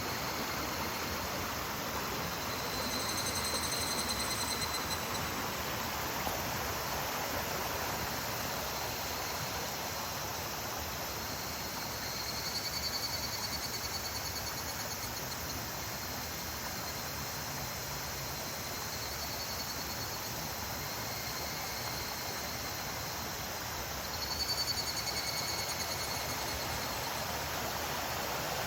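Mountain stream running steadily, with higurashi (evening cicadas, Tanna japonensis) calling over it in high, rapidly pulsing phrases of a couple of seconds each, about four times.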